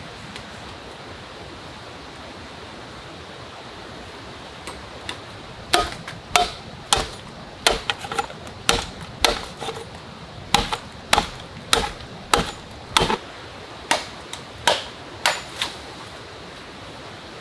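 A machete chopping into a green bamboo culm: about eighteen sharp blows, a little under two a second, starting about six seconds in and stopping near the end, each with a short ring, over a steady rushing background.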